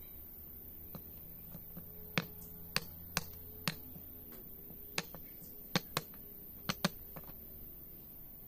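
Machete-like knife blade chopping and whittling a green branch slingshot fork against a wooden board: about ten sharp, irregular knocks of blade on wood.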